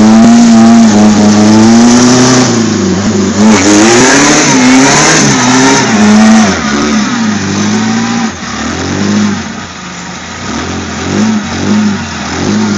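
A six-cylinder Jeep engine revs hard as it is driven through mud, its deep note rising and falling over and over. A rushing noise lies over it for a few seconds in the middle. Towards the end the engine drops back and gives shorter, quicker blips.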